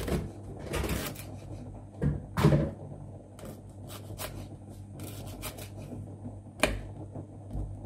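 Kitchen knife slicing a leek into thin rings on a wooden cutting board: irregular taps of the blade on the board, several a second, with louder knocks about two and a half seconds in and again shortly before the end.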